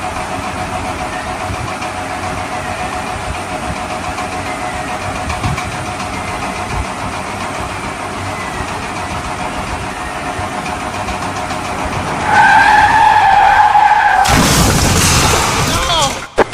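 Engine running steadily. About twelve seconds in, a loud two-pitch tone starts. From about fourteen seconds a louder rushing burst with gliding pitches follows, and it cuts off suddenly near the end.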